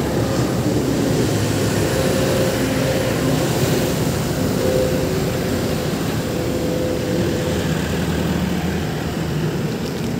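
A motor vehicle engine running steadily, a constant low rumble with a faint wavering hum.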